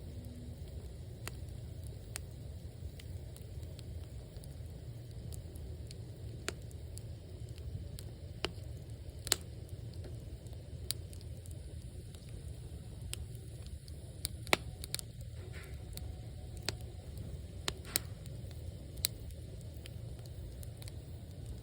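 Wood fire burning in a traditional Korean agungi firebox: irregular sharp crackles and pops of burning logs over a steady low rush of the flames.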